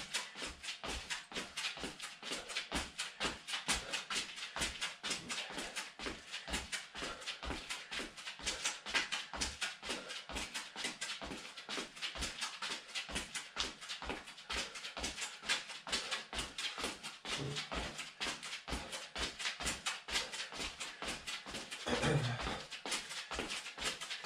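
Trainers landing on a concrete floor in a quick, steady rhythm, a person hopping on the spot.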